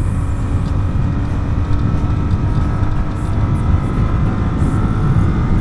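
Jawa 42 FJ motorcycle's single-cylinder engine running steadily as the bike cruises at highway speed.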